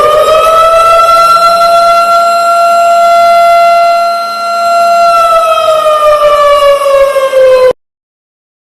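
Wailing alarm siren sounding the signal to drop, cover and hold on in an earthquake drill. Its pitch finishes rising at first, holds steady, then slowly falls in the second half before cutting off abruptly shortly before the end.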